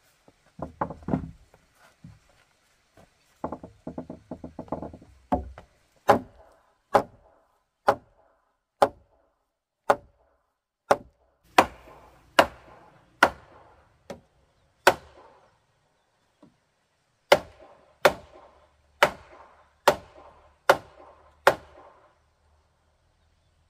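A wooden club pounding a log fence, sharp wood-on-wood knocks about once a second with a short pause partway. Before the blows, wooden poles clatter and rattle as they are handled.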